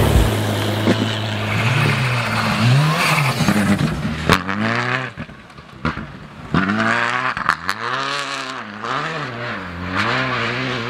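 Skoda Fabia R5 rally car's turbocharged four-cylinder engine revving up and down over and over as the car slides through snow, with a few sharp cracks.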